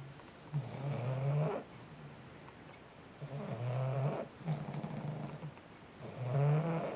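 Pug snoring in its sleep: three loud rasping snores about three seconds apart, with quieter breaths between them.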